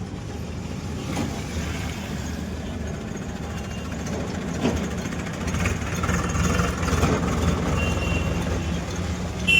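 Road traffic: a motor vehicle's engine running with a steady low rumble that grows louder partway through, with a short high beep near the end.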